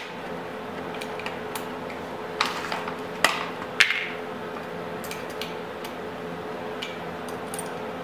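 Metal hand tools clicking and clinking against a motorcycle drum-brake panel as cotter pins are worked out of the plate that holds the brake shoes, with a few sharper knocks in the middle.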